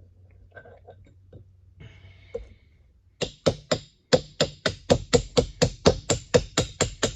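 Hammer blows on a soft drift, driving a jaw out of a late-1800s Armstrong pipe vise. The even, sharp strikes start about three seconds in and come about four a second, each with a short metallic ring.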